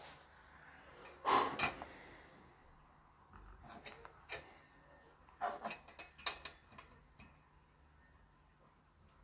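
Scattered clicks, clinks and small knocks of hand tools working against the metal casing of a mini USB desk fan as it is being pried apart, coming in three short clusters, the loudest a little over a second in.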